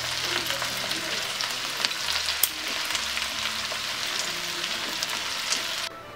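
Steady sizzling and crackling from the hot clay pot as the marinated fish pieces are laid in; it cuts off suddenly near the end.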